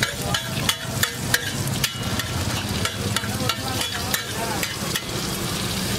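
Metal spatula scraping and tapping on a flat griddle, giving sharp irregular clicks a few times a second, while an egg and vegetable omelette mixture sizzles in hot oil. A steady low hum runs underneath.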